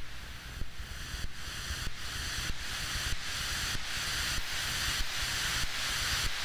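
Electronic soundtrack of a hiss-like, wind-like noise that swells louder, pulsing about one and a half times a second over a steady low hum.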